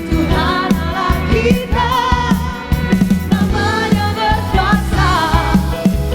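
Live worship band playing a praise song: singers' voices over bass and drums with a steady beat.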